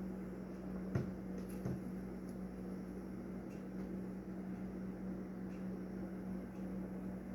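Steady low hum with room noise, broken by two light knocks about a second in and again just after.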